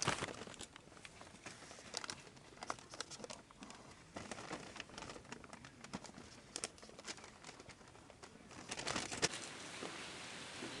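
Paper sheets rustling and crinkling as fruit crates are lined and packed, with scattered light clicks and rustles of handling. A denser flurry of rustles comes near the end.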